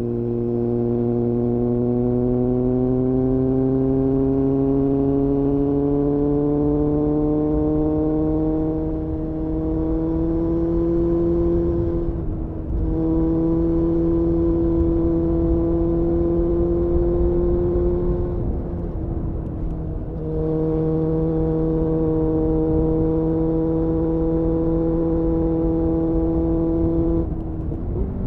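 Suzuki Bandit 600's inline-four running through an aftermarket GPR Furore Nero exhaust, heard from onboard. The engine note climbs slowly under gentle acceleration, breaks briefly at gear changes about 12 and 19 seconds in, then holds nearly steady, with wind and road rumble underneath.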